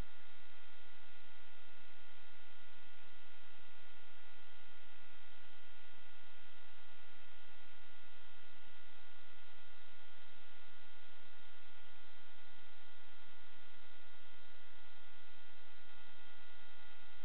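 Steady electronic hum and hiss with several fixed high-pitched tones, unchanged throughout. It is noise on the audio track of an analog FPV video recording, not the quadcopter's motors.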